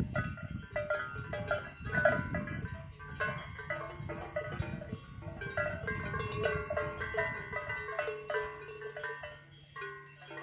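Cowbells on grazing livestock clanking irregularly, many overlapping strikes at several different pitches, each ringing briefly. A low rumble lies beneath and turns into a steady low hum near the end.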